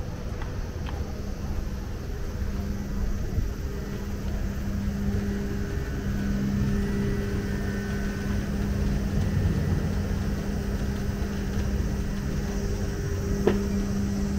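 City street traffic noise: a steady low rumble with a steady droning hum, and a sharp click about a second before the end.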